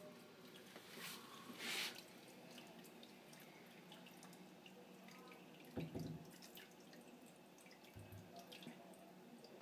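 Faint aquarium water dripping and trickling, with scattered small drip clicks. Two short hissing splashes come about a second and a half in, and a low thump near six seconds.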